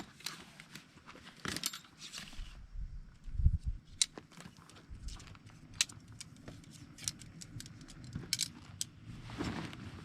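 Handling noises of a canvas swag tent being taken down by hand: scattered clicks, light metal clinks and rustling, with a dull thump about three and a half seconds in.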